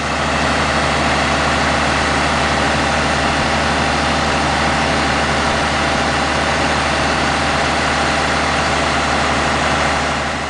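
Scania G112M fire engine's six-cylinder diesel engine idling steadily, with a constant low hum.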